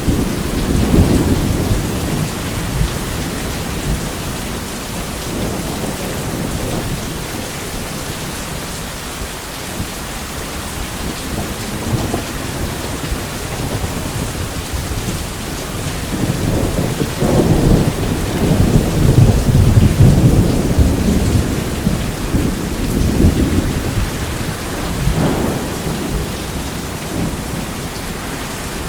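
Steady rain with rolling thunder rumbling. The loudest thunder comes about two-thirds of the way through, with smaller rumbles at the start and near the end.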